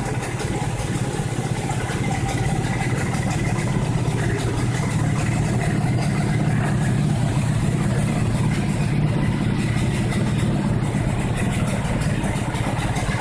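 125 cc motorcycle engine, freshly rebuilt, idling steadily, a little unevenly. An expander ring has just been fitted behind the second piston ring, and the piston-ring ticking is quieter.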